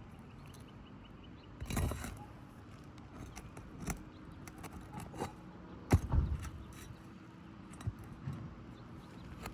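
Scattered scrapes, clicks and knocks of hand work pulling out a roof shingle, with a rustling scrape about two seconds in and a sharp knock, the loudest sound, about six seconds in.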